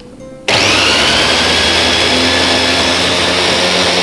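Electric mini chopper starts suddenly about half a second in; its high whine rises briefly as the motor spins up, then holds steady at full speed. The blades are chopping basil, olive oil and parmesan into pesto.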